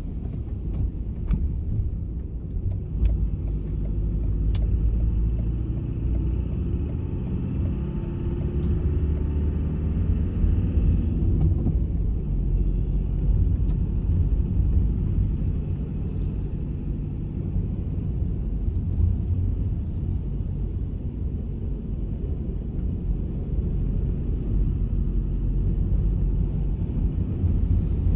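A car driving on a wet road: steady low engine and road rumble with tyre noise, the engine note shifting in pitch partway through.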